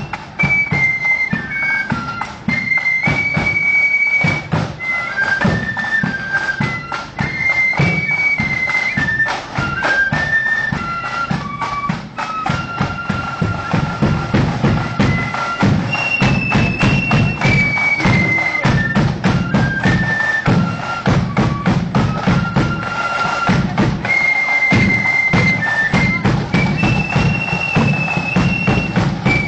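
Marching flute band playing: flutes carry a stepping melody over busy side-drum rolls and a steady bass drum.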